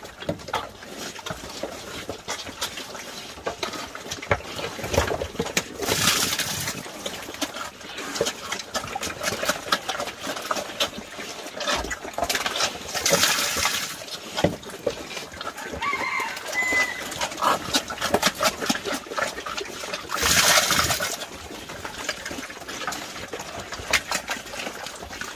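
Wild boar eating wet feed from a basin: steady slurping and chomping, many short wet clicks. Three times, for about a second each, more feed splashes into the basin as it is poured in.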